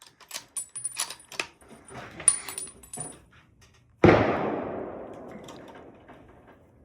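Metallic clicks and rattles of a firearm being handled, then a single gunshot about four seconds in, its report dying away over about two seconds.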